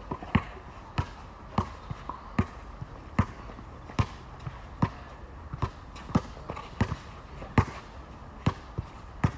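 Basketball dribbled on an outdoor hard court: about a dozen sharp bounces, a little more than one a second.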